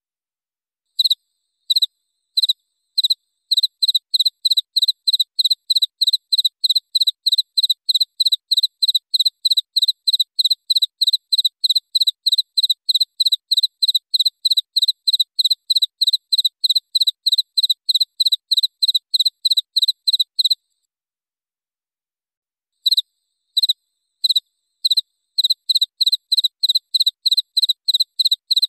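Cricket chirping: short, high, clean chirps repeated steadily at about three a second. It begins about a second in with a few spaced chirps, stops for about two seconds around two-thirds of the way through, then starts again.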